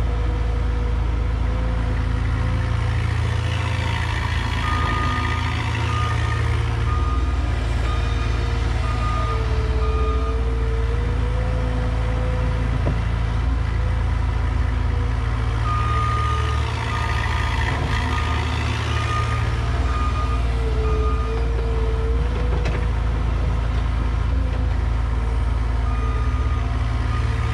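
Cat mini excavator's diesel engine running steadily as it digs, a constant low drone. A backup alarm sounds over it in three runs of short, even beeps: about 5 s in, about 16 s in, and near the end.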